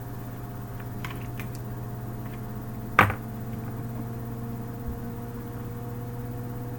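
Steady low hum, with a couple of faint clicks about a second in and one sharp click about three seconds in, as small gear is handled on the desk.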